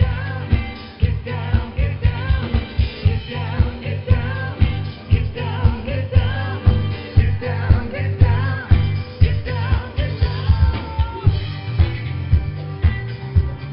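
Live rock band playing, a singer's voice over guitar and a steady drum beat.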